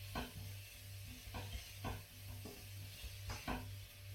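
Onion and peppers being stir-fried in a wok: a utensil scraping and knocking against the pan at irregular moments, a few times a second, over a steady sizzling hiss.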